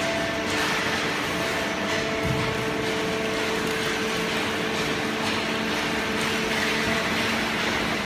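200-ton horizontal waste-paper baler and its feed conveyor running: a steady machine hum with a few held tones over an even wash of noise, and a dull knock about two seconds in.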